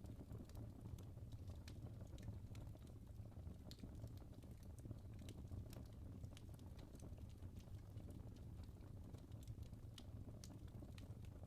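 Wood fire burning in a fireplace: irregular small crackles and pops over a low, steady rumble of the flames.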